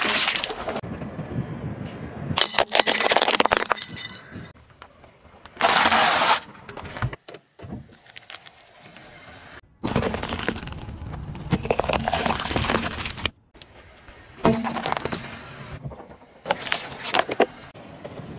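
A car tyre slowly rolling over and crushing objects on asphalt, first foil-wrapped chocolate eggs and later bell peppers: a series of separate bursts of crunching and cracking a few seconds apart, with short quieter gaps between them.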